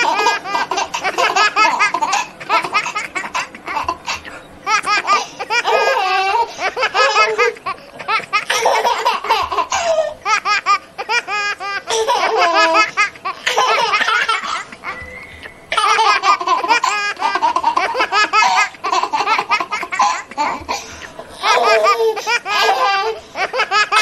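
A young child laughing hard in long, high-pitched bouts, with brief pauses between them.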